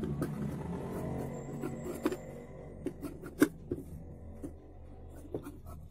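Fabric being moved about under a sewing machine's presser foot, with a few scattered light clicks and a faint steady tone underneath that fades over the first few seconds.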